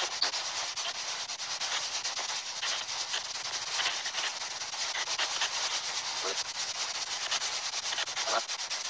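Spirit box radio scanner sweeping through stations: a steady hiss of static, rapidly chopped as it scans, with a couple of faint brief tones breaking through.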